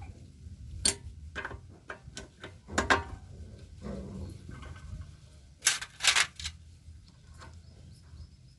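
Metal tools and engine parts clinking and knocking in scattered, irregular clicks while a fuel injector is refitted to an air-cooled diesel engine. The loudest clusters come about three seconds in and again about six seconds in.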